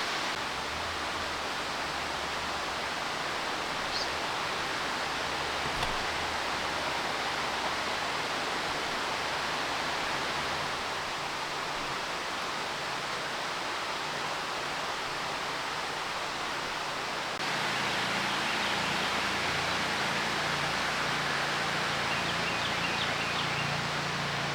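Steady outdoor ambient hiss, an even noise with no distinct events. It gets slightly louder about 17 seconds in, where a low hum joins it.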